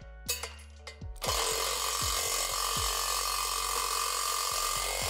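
A few light clicks, then about a second in a cordless impact driver starts up and runs steadily, driving a bracket bolt into a center-locking nut held with a wrench. These nuts are normally stiff to tighten. Background music with a low beat plays under it.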